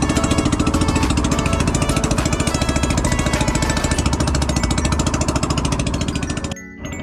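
Small engine of a motorized outrigger fishing boat running steadily under way, with a rapid, even firing beat. It drops away abruptly near the end.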